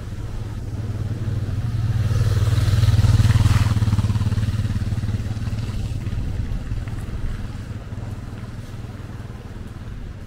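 An engine passing by: a steady low hum that swells to its loudest about three seconds in, then slowly fades.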